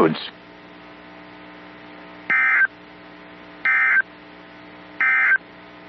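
Emergency Alert System end-of-message signal: three short, identical bursts of SAME data tones about a second apart, marking the end of the flash flood warning message. Under them a steady low hum.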